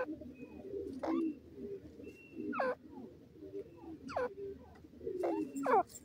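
Grey francolins calling: about five sharp calls that sweep steeply downward in pitch, spaced one to one and a half seconds apart, with the last two close together. Beneath them runs a steady low warbling murmur of softer calls.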